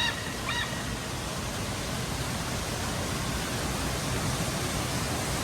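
A steady, even rush of noise like falling water, with one short bird call about half a second in.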